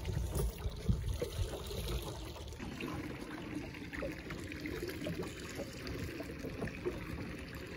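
Small waves lapping and trickling against the side of a small boat, an irregular sloshing, with a few low thuds in the first second or so.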